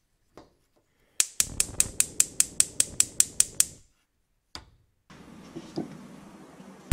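Typewriter key-click sound effect: a quick run of about fourteen even clicks, roughly five a second, then one more click and a faint steady hiss near the end.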